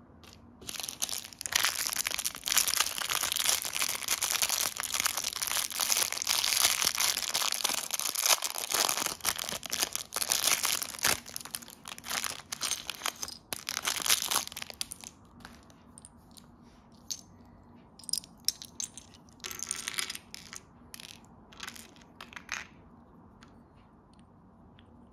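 Thin clear plastic parts bag crinkling and rustling steadily as it is handled and torn open. After about fifteen seconds this gives way to scattered small clicks of hard plastic minifigure parts being handled and fitted together, with one more short rustle of the bag along the way.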